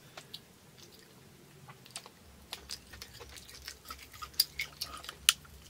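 Close-miked eating sounds: quiet chewing and soft clicks and crackles of a cooked lobster claw's shell being handled as the meat is picked out, the clicks coming more often and sharper after about two and a half seconds.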